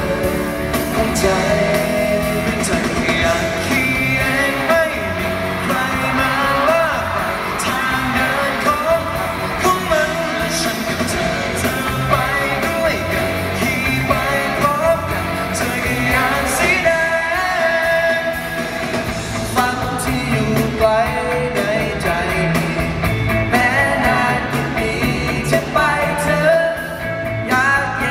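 Live pop-rock band performance: male vocals sung into microphones over electric guitars and a full band backing, played loud and steady.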